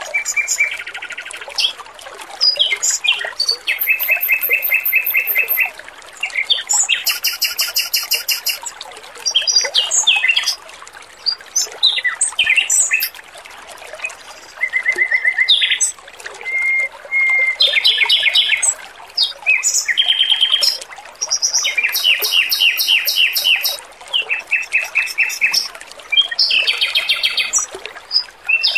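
Male Pekin robin (red-billed leiothrix) singing: high-pitched, rapid trilled phrases of one to two seconds each, one after another with short pauses, over a steady background of trickling water.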